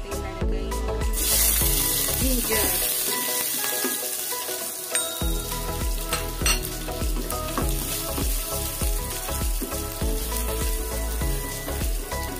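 Chopped aromatics hitting hot oil in a pot and sizzling, starting suddenly about a second in, then frying steadily while being stirred with a wooden spatula.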